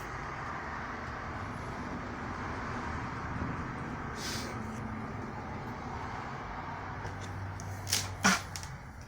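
A consumer firework hissing steadily as it sprays. Two sharp pops come near the end, the second the louder.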